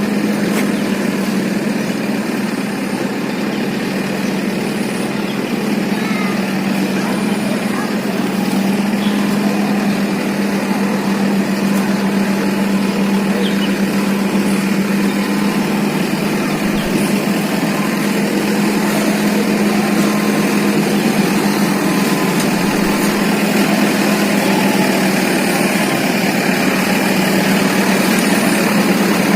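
An engine running steadily with an even hum, its loudness rising slightly over the stretch.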